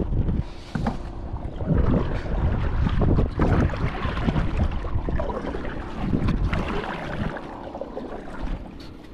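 Kayak paddle dipping and pulling through the water in several strokes, with wind buffeting the microphone.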